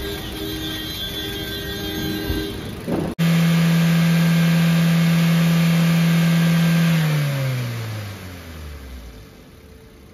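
Maruti Suzuki WagonR's four-cylinder K-series Dual Jet engine running after a camshaft replacement. After a sudden cut about three seconds in, it is held at high revs as a loud steady whine, then lets off, its pitch falling smoothly back towards idle over about two seconds.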